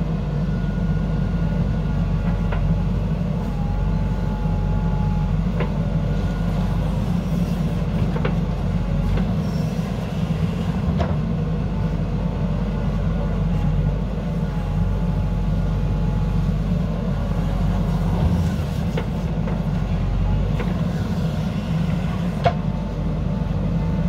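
Diesel engine of a JCB backhoe loader running steadily under load as its rear arm digs soil, with a few sharp knocks through it.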